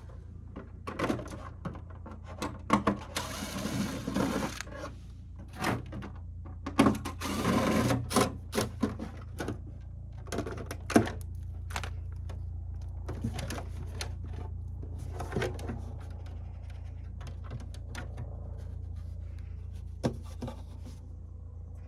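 Hands working on an all-in-one diesel heater's casing and parts: scattered clicks, taps and rattles, with two short stretches of rustling noise, over a steady low hum.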